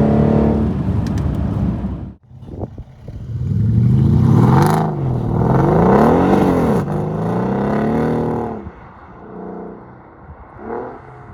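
Mercedes CLS500 (C218) 4.7-litre M278 twin-turbo V8 with downpipes and a deleted resonator, revving. A rev falls away at the start and breaks off suddenly about two seconds in; the engine is then revved up and down two or three times before it drops back to a much quieter idle.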